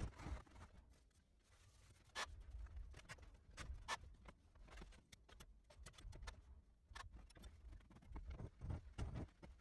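Faint hand-packing of casting sand into a wooden mold flask: soft pats and scraping, with heavier thumps at the start and near the end, and a few sharp clicks in the quieter middle.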